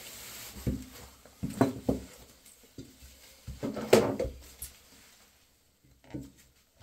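Irregular knocks and clatters of hand tools on hard surfaces, loudest about four seconds in. Just after six seconds there is a short scrape as a screwdriver is worked into the small wall drain pipe to pry out the old gasket.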